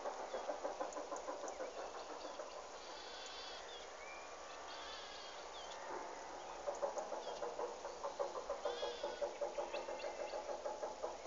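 Animal calls with a rapid, fluttering rhythm in two long bouts, the second starting about halfway in, with short higher bird chirps over them.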